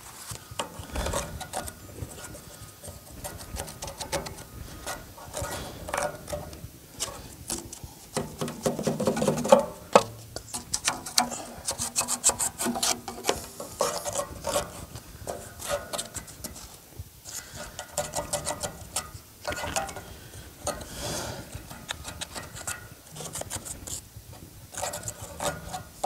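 Sawdust being scraped and dug out of a band sawmill's blade-wheel housing and clogged sawdust chute by hand, with the saw shut off. Irregular scrapes and rubs of wood and packed dust against the metal housing.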